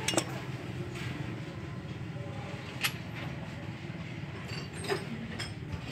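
A few sharp metal clinks of a tube wrench working the bolts of a truck's axle housing, over a steady low hum.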